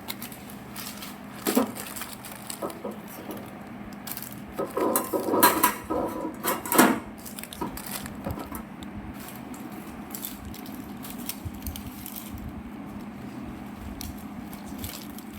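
Scattered clicks, knocks and crinkling as biscuit packets and their box are handled and set down, busiest about five to seven seconds in.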